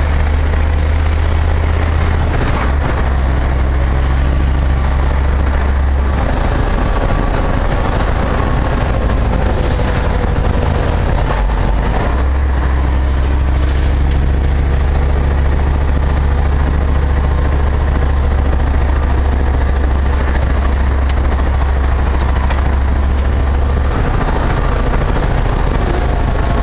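Vehicle engine and road noise heard from inside the cab while driving, a loud, steady low hum whose pitch shifts a few times.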